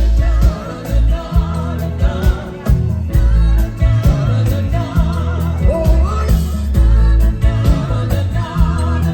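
Live reggae band playing, with heavy pulsing bass, drum hits and a voice singing over it.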